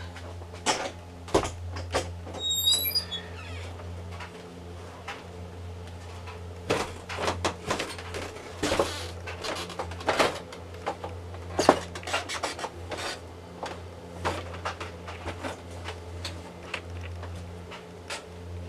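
Footsteps going down basement stairs: a run of irregular knocks and creaks from the steps, with a brief high squeak about two and a half seconds in. A steady low hum sits underneath throughout.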